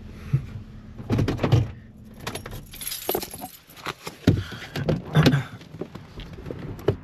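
Keys jangling, with scattered clicks and knocks of handling.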